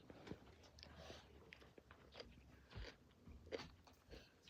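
Faint chewing with scattered small crunches and mouth clicks: a person eating a mouthful of food.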